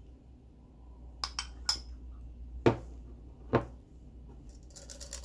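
Spoon clinking against glass as thick hand scrub is spooned into a small swing-top glass jar: three light clinks about a second in, then two louder knocks near the middle, and a quick run of light clicks near the end.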